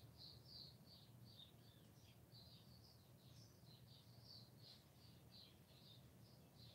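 Cockatiel chirping softly: a steady run of short, high chirps, about three a second.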